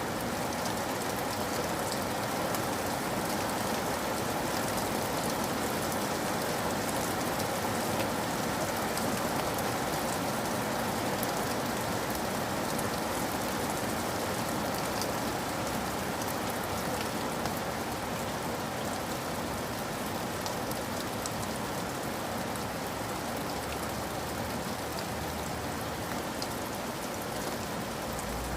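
Steady rain falling on surfaces, an even hiss with scattered faint drop ticks.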